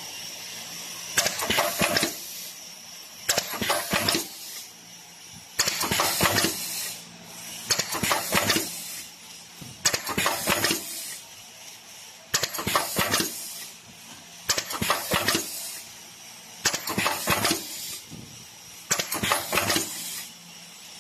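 Automatic eyelet machine punching a shade net's edge and riveting brass eyelets into it: a clattering cycle of clicks and knocks about every two seconds, nine in all, over a faint steady hum.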